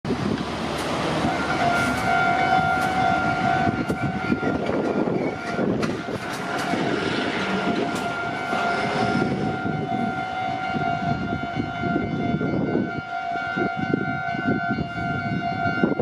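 Japanese level crossing's electronic warning bell ringing steadily with a two-note tone while a Meitetsu electric train runs over the crossing, its wheels and running gear rumbling. The train noise thins out in the last few seconds.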